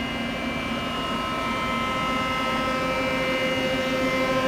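Mori Seiki SL-65A CNC turning center running under power: a steady machine hum with several held tones.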